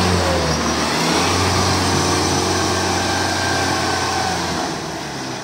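Diesel engines of tracked rice combine harvesters running hard under load while one machine, bogged in deep paddy mud with its tracks slipping, is towed by another. The engine note dips briefly about a second in and eases off near the end as the pull fails.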